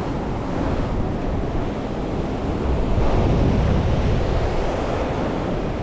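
Ocean surf washing against the shore, with wind buffeting the microphone; the rush swells a little about three seconds in.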